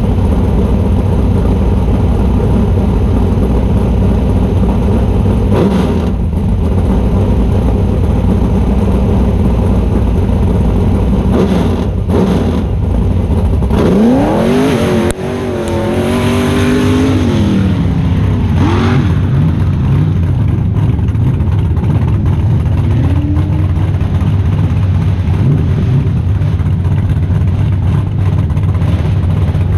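Rock-racing buggy engine running loudly at the start line, revved in a rising, wavering run about halfway through before falling back to a steady drone.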